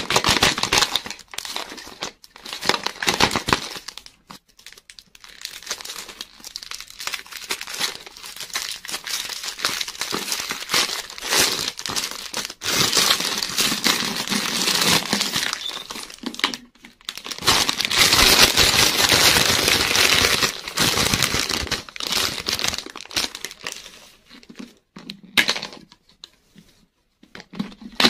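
Shiny candy wrapper crinkling and tearing as it is peeled off a giant lollipop, in bursts with short pauses, dying down near the end.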